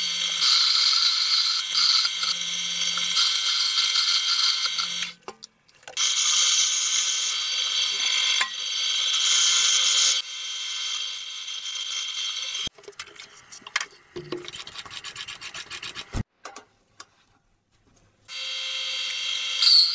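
A power tool machining a small metal part in several runs, with brief stops about five and eight seconds in. Then come scattered clicks and knocks of the part being handled, and the tool starts again near the end.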